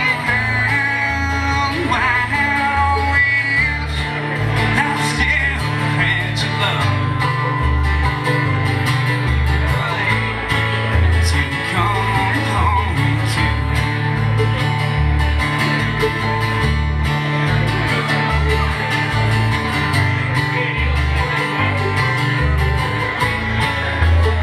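Live acoustic bluegrass-style music: banjo and two acoustic guitars playing together, with a steady low note pattern underneath and a man's voice singing in places.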